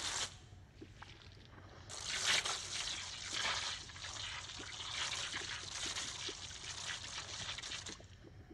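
Heated mud bath churning and splashing. A brief splash comes at the start, then about six seconds of continuous sloshing and trickling, which cuts off suddenly near the end.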